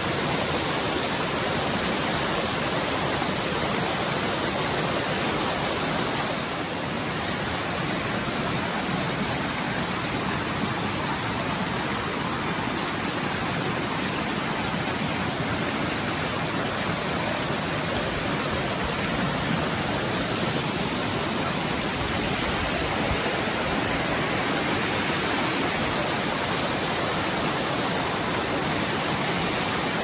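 Steady rush of water from a small waterfall pouring into a rocky pool and running on down a shallow forest stream, dipping slightly in level about six seconds in.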